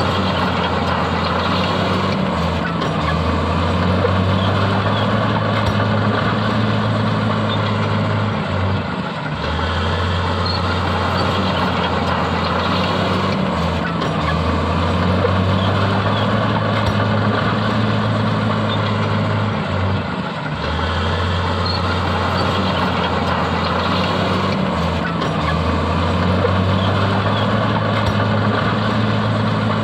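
Heavy diesel earthmoving machinery running: a steady engine drone with a deep hum that dips briefly about every five to six seconds.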